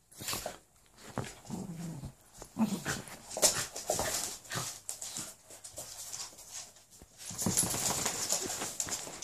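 A golden retriever puppy and a Jack Russell cross play-fighting: short growls and whines broken up by scuffling, with paws and claws on a wooden floor. The scuffling grows louder near the end.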